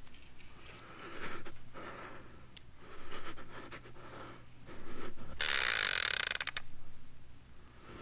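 Heavy, slow breathing: a drawn breath every second or two. About five and a half seconds in, a loud burst of hiss lasts about a second and cuts off sharply.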